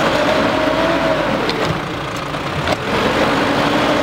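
Nissan Navara pickup's engine running as the truck crawls over rocky ground, its pitch wavering up and down, with a couple of sharp clicks about halfway through.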